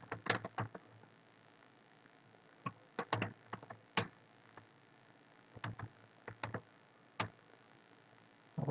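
Computer keyboard being typed on: short clusters of sharp key clicks with pauses of a second or more between them.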